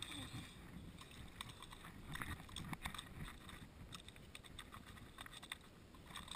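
Faint low wind rumble on the microphone, with scattered light clicks and small splashes from a hooked bluegill thrashing at the pond's surface as it is reeled in.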